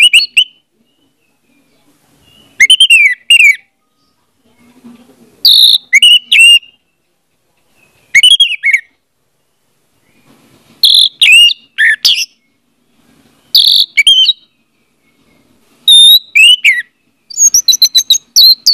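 Orange-headed thrush singing: short phrases of clear, sliding whistled notes every two to three seconds, with pauses between, ending in a quicker run of many notes.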